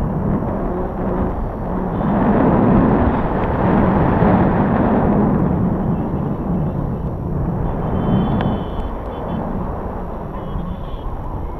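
Wind rushing over an action camera's microphone in paraglider flight, a loud buffeting noise that swells a few seconds in and eases off toward the end.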